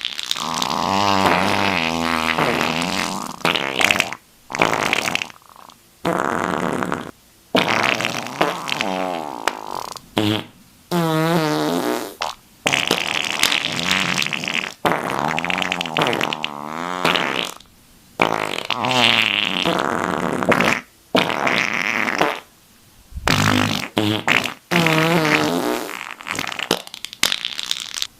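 Fart sound effects, about a dozen in a row with short gaps between them, each one to three seconds long and sputtering, its pitch wavering up and down.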